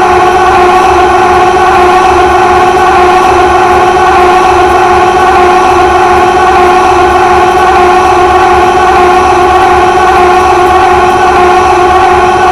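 Many stacked loops of Carl Wheezer's voice going 'ahhh' sounding at once and merging into one very loud, unbroken drone.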